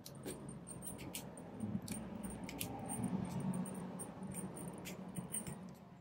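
Small metal push buttons on a 10-button combination padlock clicking as they are pressed down and let back up, with the lever held over, to feel which buttons resist and so belong to the code. There are a dozen or more irregular sharp clicks over a low rubbing of gloved hands on the lock.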